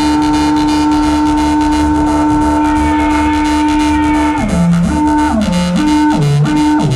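Electronic music: a long held tone over a steady low pulse, and from about four seconds in the tone repeatedly slides down in pitch and back up.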